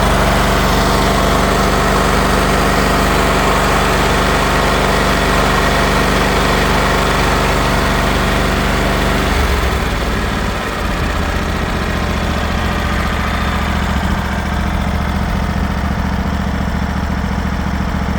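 John Deere L130 riding lawn mower engine running steadily. About halfway through, the higher running noise drops away and the engine settles into a lower, steadier note.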